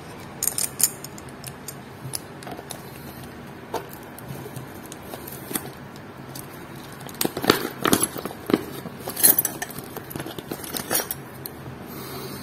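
Light metallic clicks and clinks from handling a steel watch, its screw-down case back and a case-opener wrench as the back is unscrewed and lifted off. The clicks come scattered at first and bunch together in the second half.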